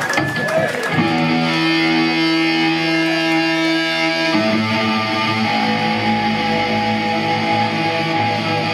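Amplified electric guitar letting chords ring out, one chord held for a few seconds and then a second one about halfway through, cut off near the end.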